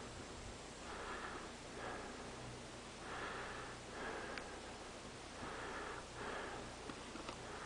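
A climber breathing hard close to the microphone: three paired breaths, each drawn in and let out, about every two seconds, over a faint steady hiss.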